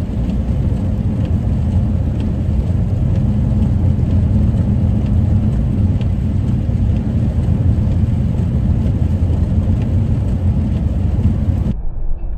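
Steady in-cabin road and engine noise from a minivan driving on a snowy highway, with a few faint light ticks. Near the end the noise cuts to a duller road noise.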